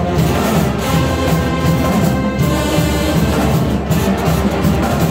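A school band playing live: flutes, clarinets and brass over a drumline of snare, tenor and bass drums with cymbals.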